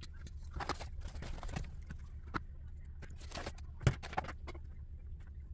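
Hands handling small plastic and metal RC car parts and tools: scattered clicks, rattles and light knocks, with one sharper knock about four seconds in, over a steady low hum.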